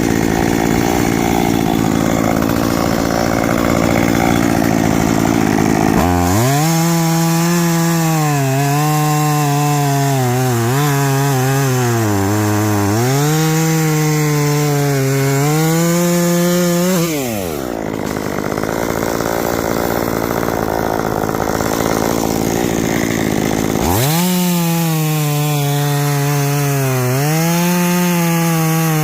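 Two-stroke chainsaw running at high revs and cutting into wood, its pitch sagging and recovering again and again as the chain loads up in the cut. About seventeen seconds in the revs fall away, and about twenty-four seconds in it revs up and cuts again.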